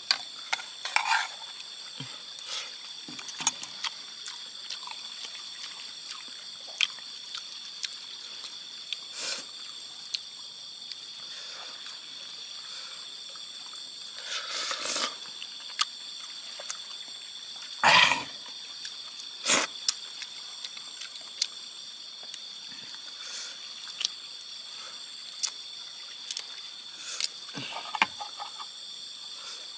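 Steady, high-pitched chorus of insects such as crickets, with scattered short knocks and clicks; the loudest knock comes about 18 s in and another about a second and a half later.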